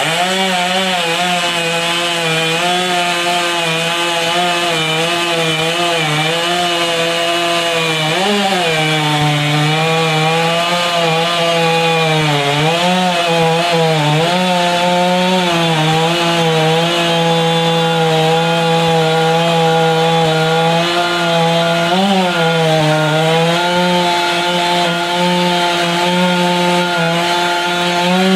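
Large ported two-stroke chainsaw running steadily under load while cutting wood. Its pitch sags briefly a few times as the chain bites and then picks back up.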